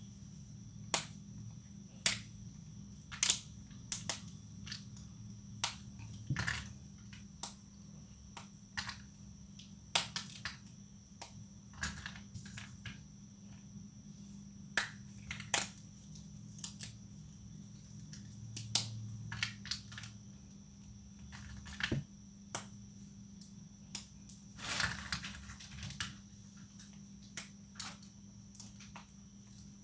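Leftover soap plates breaking: a long series of sharp, irregular snaps and cracks, some single and some in quick clusters.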